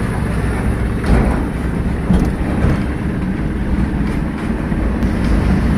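Cab interior of a goods truck driving slowly in town traffic: steady low engine and road rumble, with a few knocks and rattles from the body.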